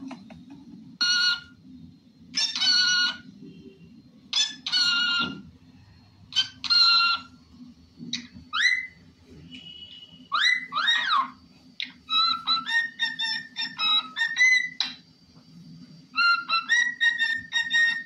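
Pet parrots calling and whistling: a few short calls with many overtones, then sweeping rising and falling whistles and a quick run of whistled notes from a cockatiel, over a steady low hum.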